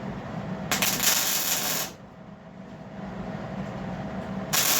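MIG welder laying tack welds on the steel plates of a bucket: two bursts of crackling hiss, the first about a second long, the second shorter near the end, over a steady low hum.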